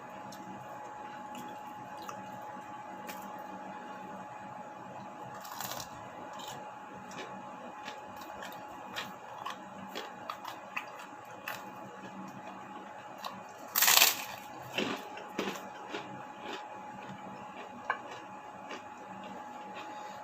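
Close-up eating sounds: chewing and crunching with many small scattered clicks, over a faint steady hum. One louder, short, sharp noisy sound comes about two-thirds of the way through.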